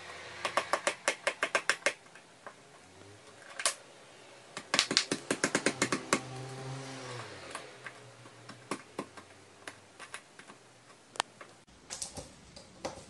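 A crow pecking at its wooden perch and the clip that holds it: rapid runs of sharp taps, about seven a second, in two bursts of over a second each, then scattered single taps.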